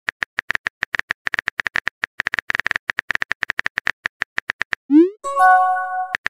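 Electronic sound effects: a rapid string of short, identical high blips, about nine a second in uneven runs, then near the end a quick upward sweep followed by a held chord of steady tones that cuts off abruptly.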